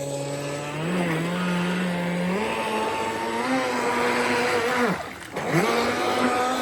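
Radio-controlled model boat's motor running at speed, a steady whine that steps up in pitch twice in the first few seconds, drops sharply for about half a second around five seconds in, then climbs back up.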